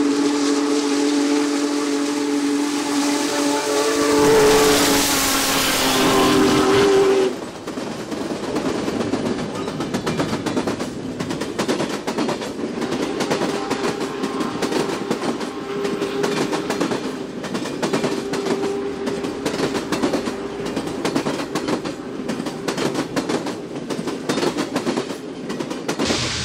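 Union Pacific 4014 Big Boy steam locomotive's whistle sounding a long, several-note chord, dropping in pitch as the engine passes about six seconds in, with a loud rush of steam and running gear. The whistle cuts off a little after seven seconds. The passenger cars then roll past with a continuous clatter of wheels over the rail joints.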